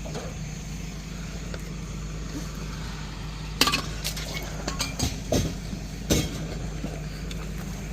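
A vehicle engine runs with a steady low hum, likely the bus idling. Several sharp clunks and knocks break in over it in the second half.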